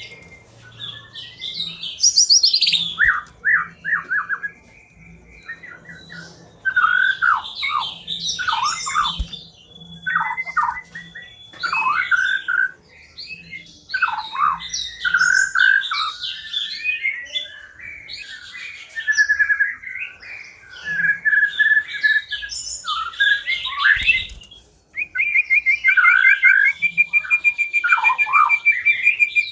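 White-rumped shama (murai batu) singing a varied song of whistled phrases and fast note runs, broken by short pauses, ending in a long rapid trill.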